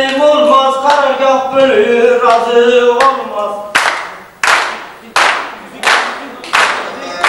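Men's voices singing a tune without instruments. About three and a half seconds in, a group starts clapping in unison, a loud, steady beat of about one clap every 0.7 s, with the singing going on faintly under it.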